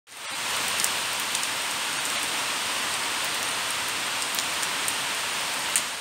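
Steady rain falling onto a puddled concrete yard: an even hiss with scattered sharper drop splashes, fading in at the start.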